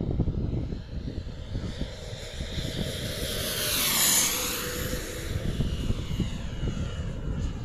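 Radio-controlled scale A-29 Super Tucano model flying past, its engine-and-propeller sound swelling to a peak about four seconds in and then falling away and dropping in pitch as it passes. Gusty wind rumbles on the microphone throughout.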